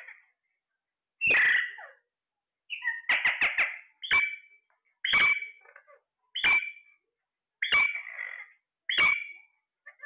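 Caged Psittacula parakeets squawking: short, loud calls about once a second, with a quick run of four near the three-second mark.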